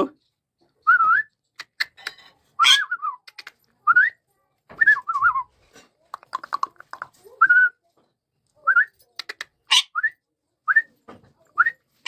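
Rose-ringed parakeet (Indian ringneck) giving a series of short rising whistles, about one a second, mixed with a few brief sharp squawks.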